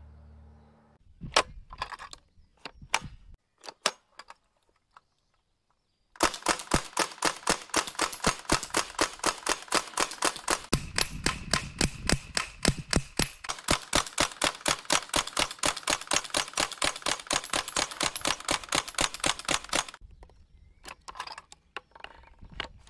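Umarex Thompson BB gun firing a long run of rapid, evenly spaced shots that lasts about fourteen seconds, after a few single shots or clicks. Lighter clicks of the gun being handled come near the end.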